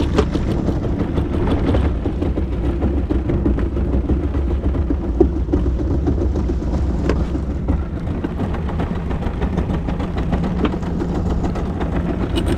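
A small fishing boat's engine idling steadily.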